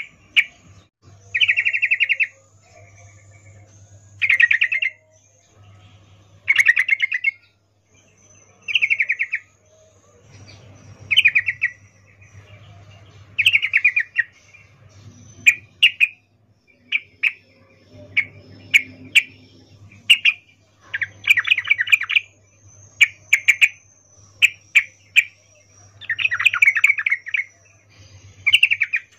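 Yellow-vented bulbul giving short, rapidly pulsed chattering calls again and again, one every second or two, with quick single notes in between: a female's breeding call to a male. A faint, thin, high twittering runs above it.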